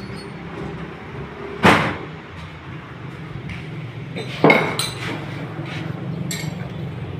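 Metal parts knocking twice, loudly and about three seconds apart, followed by a few lighter metallic clinks, over a steady low hum.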